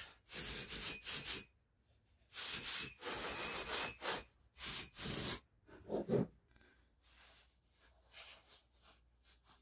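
Compressed air hissing out of an HVLP spray gun in several short blasts as the trigger is pulled, the longest lasting about three seconds. Near the end, only faint rustling of masking tape and paper being pressed down.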